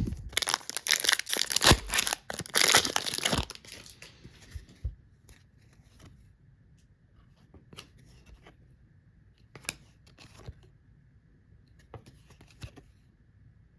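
A hockey card pack wrapper being ripped open, a loud crinkly tearing for about the first three and a half seconds. After that there are only faint, scattered short clicks and taps.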